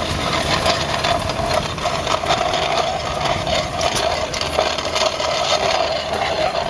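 Antique stationary gas engine running steadily, with rattling and clicking from a belt-driven cast-iron corn grinder.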